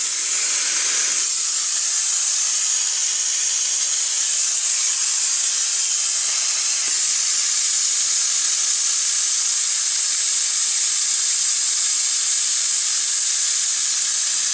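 Compressed air hissing steadily out of a 12 V air compressor's storage tanks as the pressure is let down.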